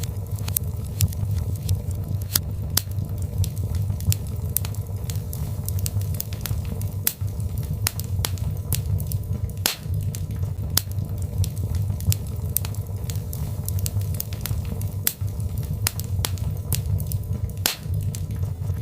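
Birch logs burning in a fireplace: irregular sharp crackles and pops, several a second, over a steady low rumble of the flames.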